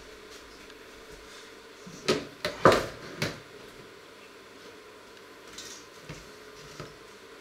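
A quick run of four sharp knocks and clatters of objects being handled on a wooden kitchen counter about two seconds in, followed by a few faint taps near the end as toast is lifted out of a toaster.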